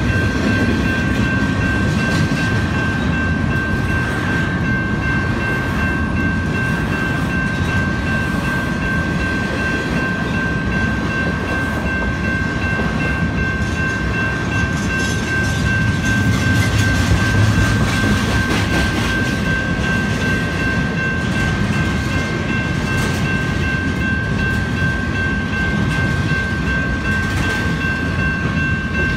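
Grade-crossing electronic bells (a Safetran NEG and a GS Type 1) ringing steadily over the rumble and clatter of a freight train of empty intermodal well cars rolling through the crossing.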